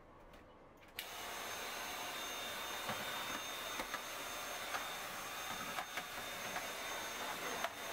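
A steady, even hiss with a faint high whine starts abruptly about a second in and runs on, with a few light clicks over it.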